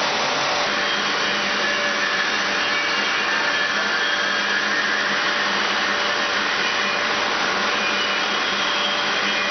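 Woodworking machinery with dust extraction running: a loud, even rush of machine noise with a few faint steady tones and no distinct knocks.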